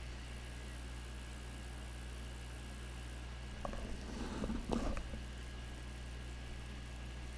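A steady low electrical hum with a few faint steady tones. About halfway through come a second or so of light clicks and rustling as small pliers handle a tiny electronic component.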